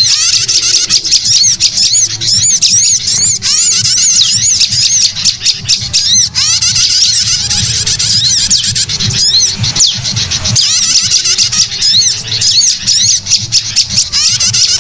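Dense, unbroken chatter of many small songbirds, with rapid high arching chirps overlapping one another. It is a bird-lure recording.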